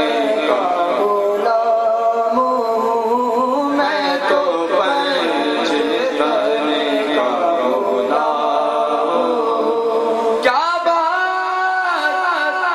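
A man's voice singing an Urdu naat in long, drawn-out ornamented phrases, with no words sung in this stretch. About ten seconds in, the voice leaps up to a higher held phrase.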